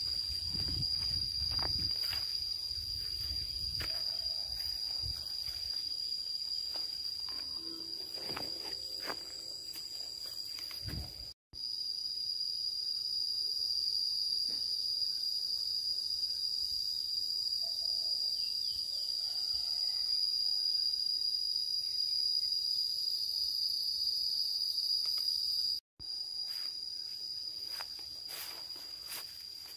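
A steady, high-pitched chorus of insects, with occasional footsteps and brush rustling along the path. The sound drops out for an instant twice, at edits.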